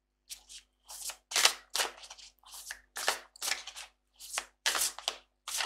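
A tarot deck being shuffled by hand: a run of short, crisp card slaps and flicks, about three a second.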